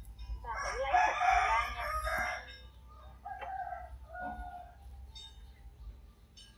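A rooster crowing once, starting about half a second in and lasting nearly two seconds, followed by two short, fainter calls.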